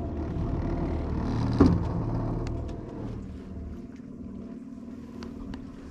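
Jet boat's engine running at low speed, then easing back to a quieter idle about three seconds in. There is a single knock about a second and a half in, and a few light clicks near the end.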